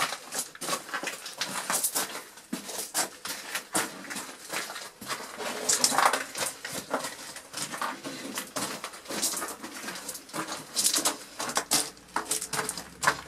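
Footsteps crunching on loose gravel, an irregular run of steps.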